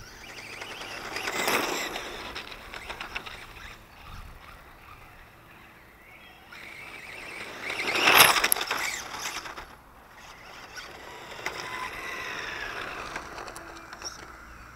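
Radio-controlled model car driving past several times, its motor whine and tyre noise swelling and fading. It is loudest on a close pass about eight seconds in. On a last pass near the end, the pitch falls as it goes by.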